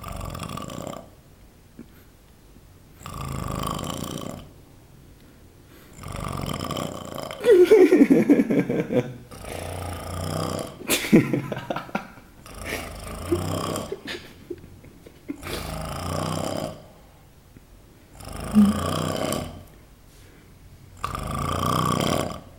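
Loud snoring in deep sleep, one snore about every two to three seconds with quiet breaths between. The longest and loudest snore, a rough rattling one, comes about a third of the way through.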